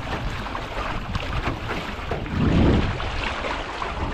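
Wind buffeting the microphone and choppy water splashing and slapping against the hull of a Grumman 17 aluminum sailing canoe under way. There are repeated short splashes, and a louder low rush of wind about two and a half seconds in.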